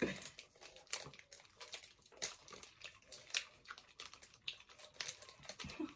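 Faint, sporadic crinkling and clicking of plastic sweet wrappers being handled, with quiet chewing of sour sweets.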